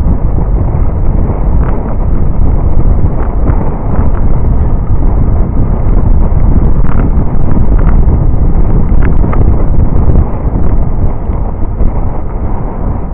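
Loud wind buffeting on the microphone of a camera riding on a moving road bicycle: a steady low rumble, with a few faint ticks.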